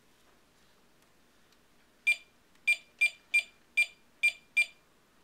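Toy microwave beeping as its buttons are pressed: seven short, high electronic beeps in an uneven run, starting about two seconds in.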